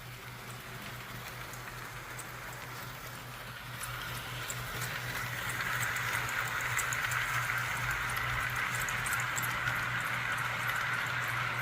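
Vintage Tenshodo steam-locomotive sound box playing a steady synthetic steam hiss, growing louder about four seconds in and again about six seconds in, over a low steady electrical hum.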